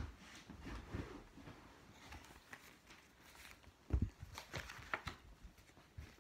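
Large picture book being handled and moved about: faint rustling and a few soft knocks, the loudest cluster about four seconds in.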